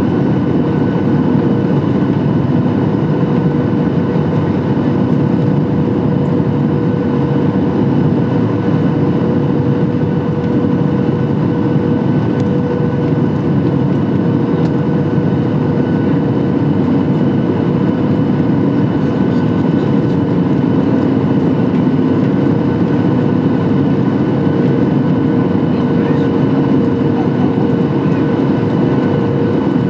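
Steady cabin noise inside a Boeing 737 MAX 8 in motion: a loud, even engine hum with several held tones over a rushing air noise.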